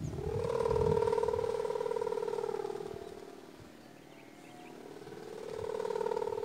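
Sawangan kite hummer with a mica reed, droning on a flying Madurese kite: a steady buzzing hum at one pitch that fades about halfway through and swells again near the end.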